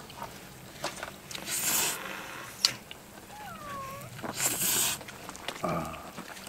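A child slurping ramen noodles: two slurps, one about a second and a half in and one about four and a half seconds in, with a sharp click between them and a short squeaky sound that dips and rises in pitch.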